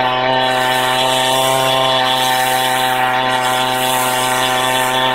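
Husqvarna 390XP two-stroke chainsaw with a 28-inch bar and ripping chain, mounted in a Granberg Mini Mill, running steadily under load as it rip-cuts a Douglas fir log lengthwise into a slab.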